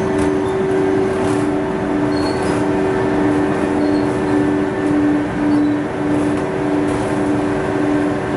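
Rag tearing machine running, shredding old cloth: a steady mechanical drone with a hum that swells about twice a second.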